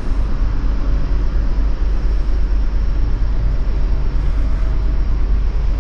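Wind buffeting the microphone on an open ship's deck: a loud, steady rumbling noise, heaviest in the low end.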